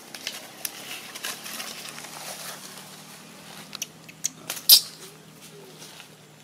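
Dry leaf litter rustling and crackling as macaques shuffle and handle a baby, with scattered sharp clicks and one loud crack about three quarters of the way through.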